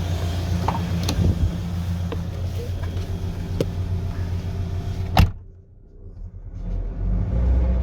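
Gazelle Evotech 2.7 four-cylinder petrol engine running with a steady low hum and no knock: the valve-seat knock is hushed for now by oil poured into the cylinders. About five seconds in there is a sharp click, the sound drops away suddenly, and then a low engine rumble builds again.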